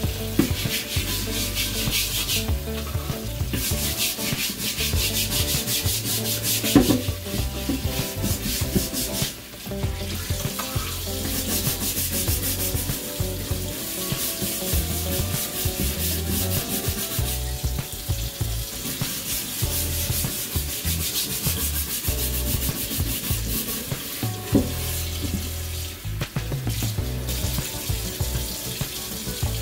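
Stiff-bristled dish brush scrubbing baking soda into a bamboo cutting board in quick back-and-forth strokes, pausing briefly now and then.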